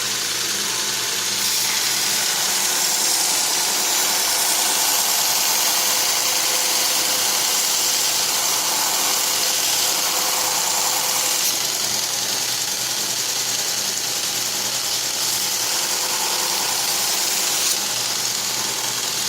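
Double-wheel belt knife grinder running, its two 80-grit belts grinding both sides of a 440C steel blade at once: a steady motor hum under a loud abrasive hiss. The hiss grows brighter about a second and a half in and eases back a little around the middle.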